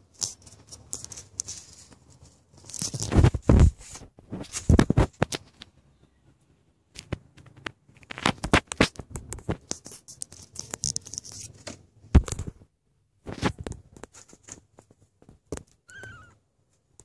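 Scratchy rustling, clicks and heavy bumps in bursts from the recording phone being handled close to a newborn kitten, rubbing right on the microphone. A brief faint kitten mew comes near the end.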